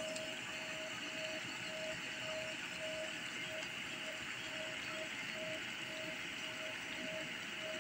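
Water at a rolling boil in a small metal camp pot over a camp stove burner: a steady bubbling and burner rush. A faint pulsing tone repeats about twice a second throughout.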